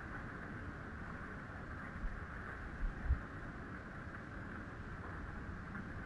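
Steady outdoor background noise, a hiss with a low rumble beneath, with a few brief low bumps about two and three seconds in.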